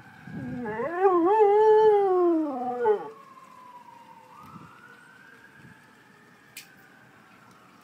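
Dog howling along with fire engine sirens: one long, wavering howl that climbs and then falls away, ending about three seconds in. The sirens keep wailing, slowly rising and falling in pitch, with a sharp click near the end.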